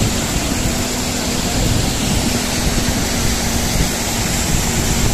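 Waterfall and river water rushing over rocks: a steady, even rush of noise.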